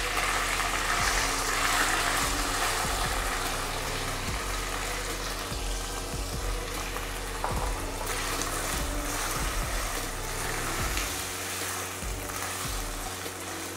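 Shredded chicken sizzling in hot oil with garlic in a nonstick wok, stirred with a spatula, with occasional light scrapes and taps; the sizzle gradually gets quieter. Soft background music plays underneath.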